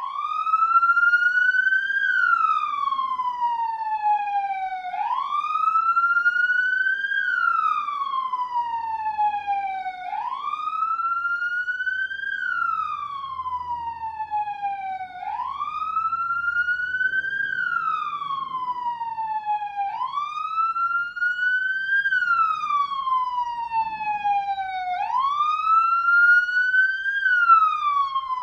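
Police siren sounding a slow wail: each cycle rises in pitch for about two seconds and falls for about three, repeating about every five seconds.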